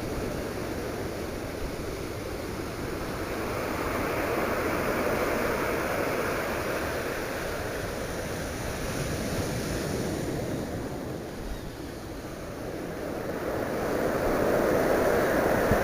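Ocean surf breaking and washing on the shore in slow surges, building about a third of the way in, easing off past the middle and swelling again near the end.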